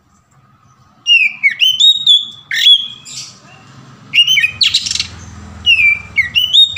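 Oriental magpie-robin (kacer) singing a loud, varied song of the open, full-throated 'ngeplong' style. Clear whistled notes with quick swoops up and down in pitch are mixed with a few harsh rasping notes, starting about a second in.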